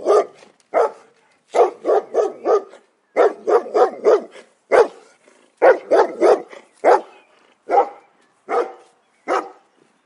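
Dog barking: quick runs of three or four barks, then single barks about a second apart near the end.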